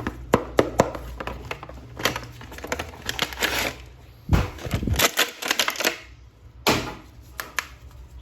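Plastic toy action figure and its parts being handled: an irregular string of sharp clicks, taps and rustles, with a heavier knock about four seconds in.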